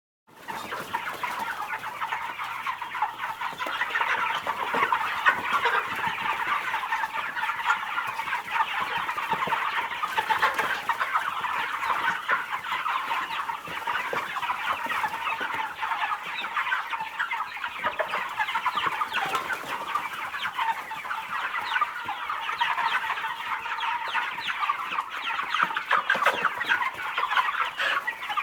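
A flock of domestic chickens clucking, many birds at once in a dense, continuous chatter, starting about a third of a second in after a moment of silence.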